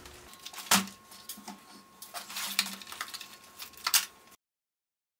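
Light clicks and taps of small plastic and metal parts being handled on an RC truck's chassis, with a sharper knock about a second in and another near four seconds. The sound then cuts off to dead silence for the last second.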